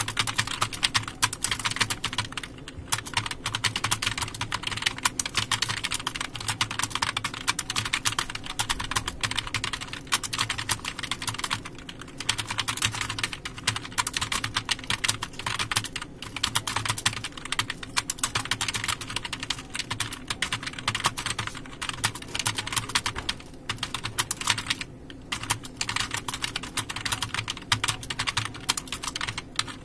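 Fast, continuous typing on a computer keyboard: a rapid run of key clicks with a few short pauses, over a low steady hum.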